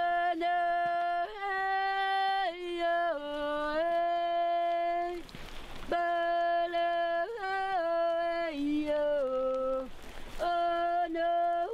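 A woman singing a wordless song in long held notes that move up and down in small steps, in three phrases with short breaths between them.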